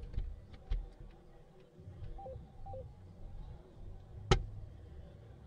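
Electronic soft-tip dartboard giving two short stepped beeps, a higher tone dropping to a lower one, about two seconds in and again half a second later. Light clicks come early on, and a single loud, sharp clack comes about four seconds in.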